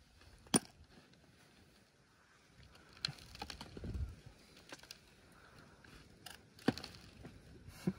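A few separate sharp metallic clicks and knocks of parts and tools being handled, the loudest about half a second in, with a low rumble of movement around the middle; the impact wrench is not running.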